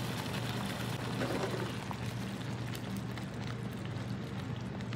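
Thick red tomato-and-pepper sauce simmering in a pan, a steady sizzle with small scattered pops, over a low steady hum.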